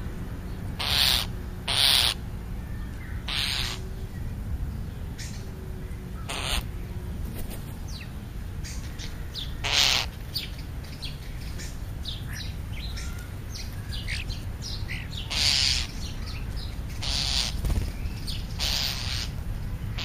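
Crows calling: about eight short, harsh caws at irregular intervals, with faint chirps of small birds between them.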